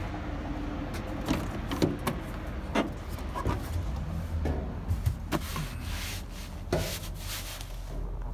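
Low steady rumble of a 2013 Freightliner M2 fuel truck's diesel engine idling, with a string of sharp knocks, clicks and rubbing from someone climbing into the cab and handling the phone.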